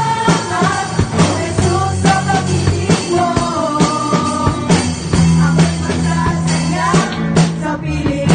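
A woman singing into a microphone with a live band: electric bass and drum kit playing a steady beat under her melody.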